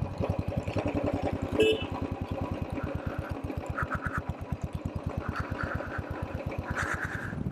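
Motorcycle engine running at low revs with a rapid, even beat. A short high beep sounds about a second and a half in.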